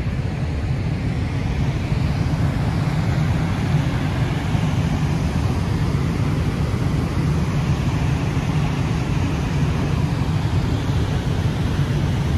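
Turbulent floodwater rushing through a rock-cut spillway channel below a dam: a steady, loud, deep rushing noise.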